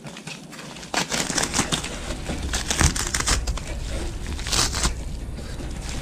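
Yellow padded mailer bag being pulled open by hand, its paper and padding crinkling and rustling in irregular handfuls, loudest in the middle and again near the end.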